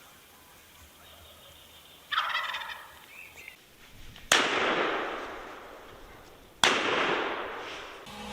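A wild turkey gobbles about two seconds in, then two loud shotgun shots about two seconds apart, each echoing away.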